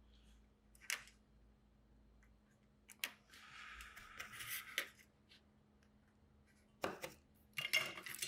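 Small clicks and taps of tools being handled while soldering small electronic parts, with a brief rustling hiss from about three to five seconds in.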